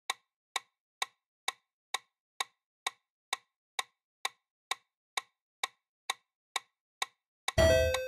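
Quiz countdown timer sound effect: a dry clock tick about twice a second, marking the seconds left to answer. Near the end a short, louder ringing sound effect plays as the answer is revealed.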